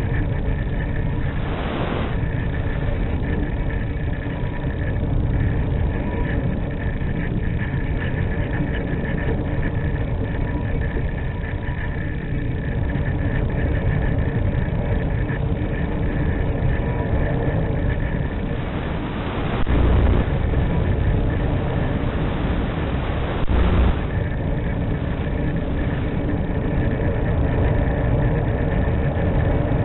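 Steady low rush of wind noise on a microphone, with faint steady hum tones on top and two brief louder gusts, one about twenty seconds in and another about four seconds later.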